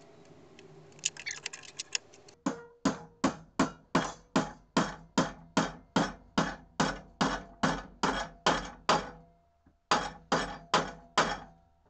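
Hand hammer striking 2.5 mm cold-rolled steel strip to bend it cold in a blacksmith's vise: a steady run of blows about three a second with a metallic ring, a short pause, then a few more blows near the end.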